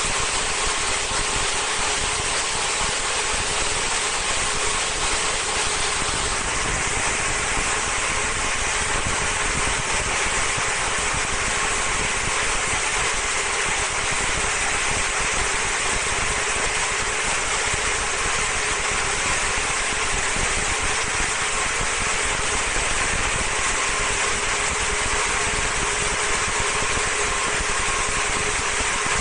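Vertical high-speed slitting-rewinding machine running steadily while it winds film onto rolls: an even mechanical hum with a hiss over it. Its tone shifts slightly about six seconds in.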